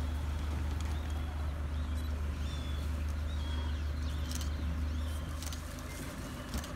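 Low, steady rumble of an idling safari vehicle engine, which drops away about five and a half seconds in. Over it come short bird chirps and a few sharp clicks.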